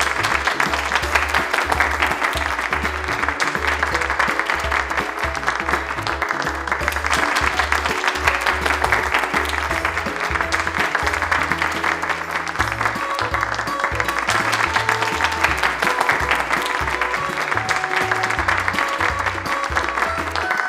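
Background music with a pulsing bass beat and plucked notes, over a steady wash of clapping crowd applause that starts suddenly at the beginning.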